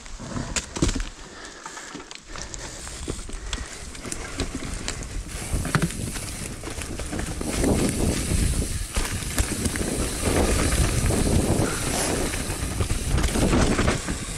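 Mountain bike riding down a wet, leaf-covered dirt trail: tyres rolling over leaves and ground, with scattered clicks and knocks of the bike rattling over bumps. The rolling noise grows louder after about five seconds as the pace picks up.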